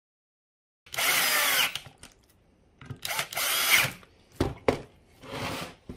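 Cordless drill driving screws into a random orbit sander's hook-and-loop pad, its motor whirring in two short runs about a second apart, followed by a few sharp clicks.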